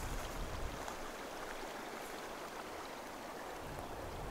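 Small mountain creek flowing: a steady, even rush of running water.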